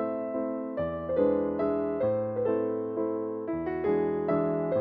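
Background piano music: a slow melody over low notes that change every few seconds.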